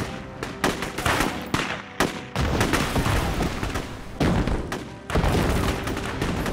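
Gunfire and explosions from a battle scene: a quick run of shots, then heavy blasts about two and a half and five seconds in, each with a low rumble that hangs on.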